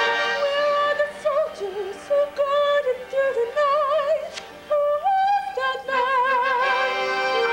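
Music: a high, soprano-range voice singing long notes with wide vibrato, in phrases broken by short pauses.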